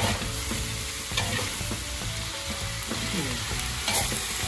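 Stir-frying in a wok: tapioca noodles and Chinese cabbage sizzle steadily in hot lard, while a metal spatula scrapes and knocks against the wok a few times.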